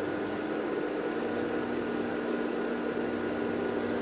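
IBM PC XT (model 5160) with its original Seagate ST412 hard drive, running just after power-on: a steady whirring hum with a few held tones, and a low tone joining about a second in.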